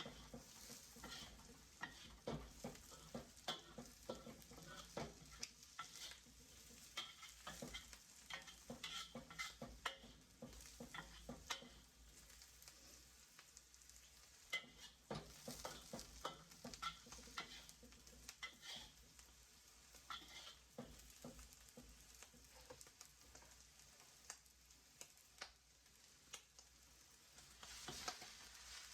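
Vegetables for fried rice frying in a pan with a soft sizzle, while a utensil stirs them, scraping and tapping against the pan at irregular intervals.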